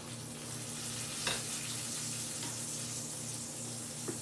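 Food sizzling steadily in a frying pan on an electric stove, with a light click about a second in.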